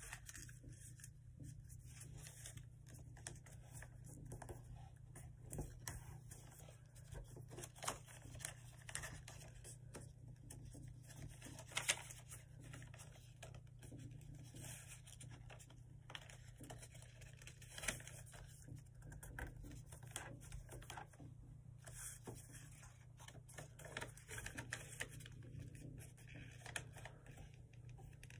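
Notebook paper being folded and creased by hand: soft crinkling and rubbing with scattered sharp crackles, over a faint steady low hum.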